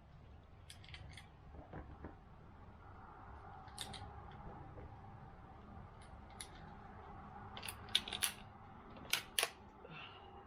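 Sharp metallic clicks and snaps of handling a bolt-action .22 rifle and its cartridges, scattered at first, then a quick cluster about eight seconds in and two more about nine seconds in, over a faint steady hum.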